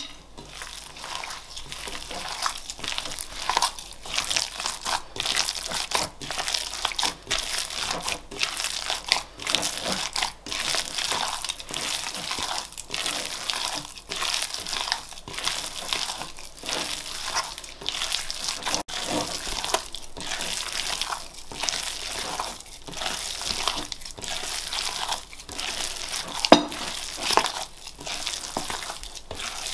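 Bare hand squeezing and kneading raw minced chicken with butter, paste and spices in a bowl: a continuous wet squelching and squishing, with one louder knock near the end.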